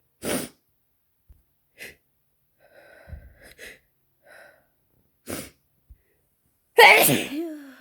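A person with a head cold giving several short sniffs and catching breaths, then one loud sneeze about seven seconds in, with a voiced tail that falls in pitch.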